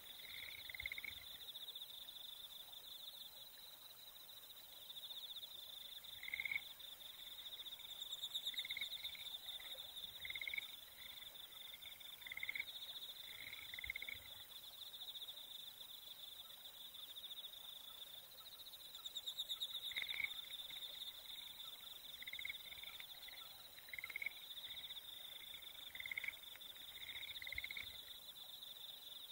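Insects trilling steadily in a high, pulsing chorus, with short lower chirps coming in small groups every few seconds.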